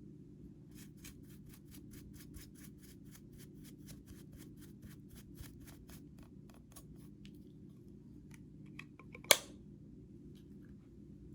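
A fast, even run of small clicks, about five a second, for several seconds, then one much louder click a couple of seconds later, over a low steady hum.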